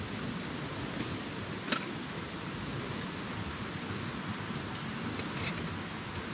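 Steady outdoor hiss of forest ambience, with a few sharp clicks, the loudest about two seconds in.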